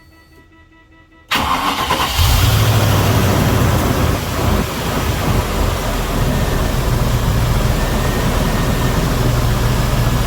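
Range Rover P38's 4.0-litre GEMS Rover V8 starting about a second in, catching straight away and settling into a steady idle, with a brief dip a few seconds later. It is running with a new air intake hose fitted to stop unmetered air getting in, the suspected cause of its intermittent misfires.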